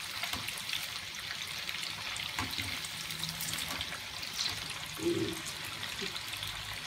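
Marinated chicken pieces deep-frying in hot oil in a kadhai: a steady crackling sizzle of bubbling oil, with a few sharper ticks as a wire skimmer turns the pieces.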